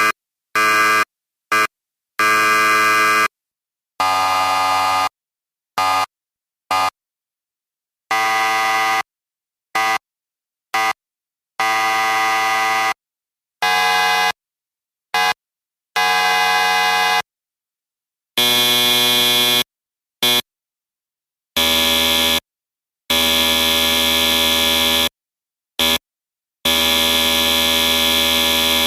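A series of electric buzzers sounding one after another: harsh, steady buzzing tones cut off cleanly into silence, some short blips of a fraction of a second and others held for one to three seconds, with the pitch and tone changing from one buzzer to the next.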